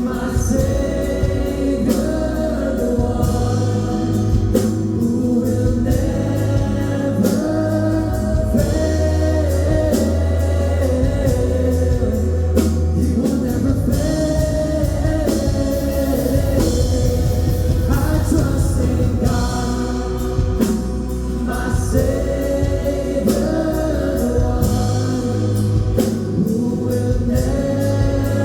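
Gospel-style worship music: a group of voices singing held, sustained lines over a band with a steady bass and drum hits.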